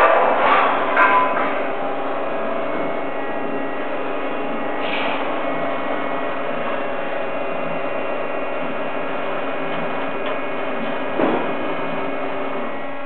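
Roll-forming machine for steel roller-shutter slats running, a steady mechanical hum with several fixed tones as the profile feeds through the rollers. A few sharp metallic clanks come in the first second and a half, and another louder clank about eleven seconds in.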